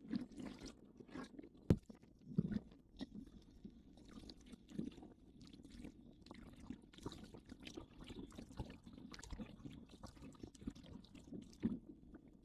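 Irregular splashing and knocking as people wade through shallow water and push a small sailing dinghy off, with one sharp knock just under two seconds in.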